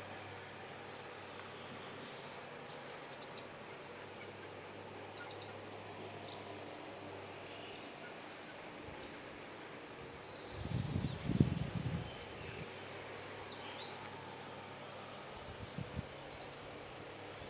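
Quiet garden ambience with small birds chirping high and briefly, again and again. About eleven seconds in, a low rumble of about a second and a half on the microphone is the loudest sound, with a few faint low knocks near the end.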